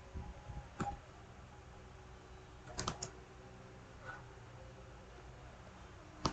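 A few scattered computer keyboard keystrokes, faint, with two or three close together about three seconds in.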